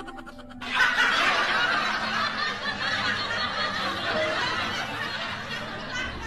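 Laughter, starting about a second in and carrying on steadily for about five seconds.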